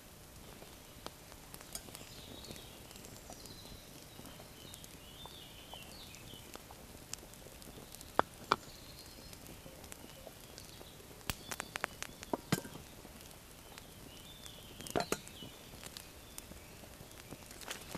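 Quiet woodland ambience with faint bird chirps and a few sharp clicks and knocks, the loudest a pair about eight seconds in and a cluster about twelve to fifteen seconds in, from camp gear handled by a smoky campfire.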